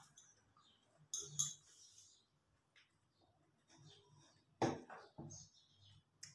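A metal spoon clinking and knocking against glass dishes: two quick clinks about a second in, a louder knock past the middle, and a short click near the end.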